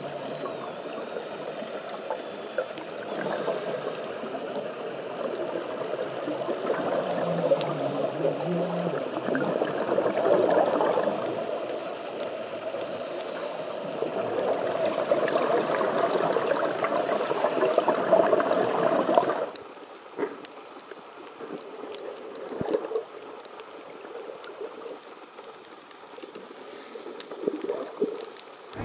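Scuba diver's exhaled air bubbling and gurgling, heard underwater through a camera housing, in slow swells every few seconds. About two-thirds of the way through it drops to a quieter, fainter gurgle.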